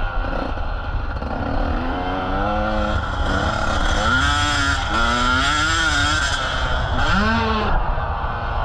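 Motocross motorcycle engine revving, its pitch climbing and dropping back about five times as the throttle is opened and closed.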